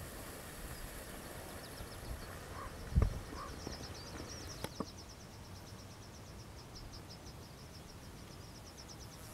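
Open-air ambience with an insect chirping in a rapid, even series of short high pulses, several a second, starting a couple of seconds in. A single loud low thump comes about three seconds in.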